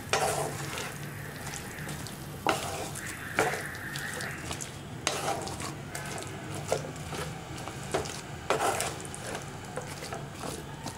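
Wooden spatula stirring sliced bitter gourd into frying masala paste in a nonstick pan: irregular scrapes and shuffles, several a few seconds apart, over a low sizzle.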